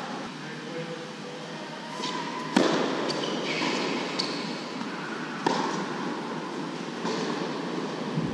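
Tennis ball struck by racquets and bouncing on an indoor hard court: sharp pops that echo round a large hall, the loudest about two and a half seconds in and another about five and a half seconds in. Short squeaks of tennis shoes on the court come in between, over steady background noise.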